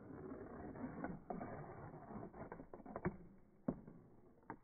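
Glass marble rolling along a cardboard marble-run track, the sound slowed down with slow-motion footage: a rough rolling rumble for the first couple of seconds, then several sharp clicks in the second half as it knocks along the cardboard.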